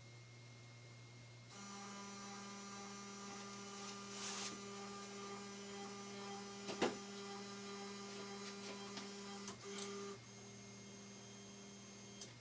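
Lowrider2 CNC machine running with a steady motor whine that starts about a second and a half in and stops about ten seconds in, with a sharp click near the middle and a few small clicks before it stops.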